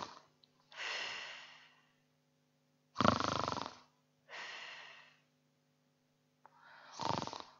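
A person performing exaggerated snoring into a microphone: a loud rattling snore on each in-breath, then a softer breathy out-breath, three times in slow rhythm. It is acted snoring, standing for the innkeeper sleeping.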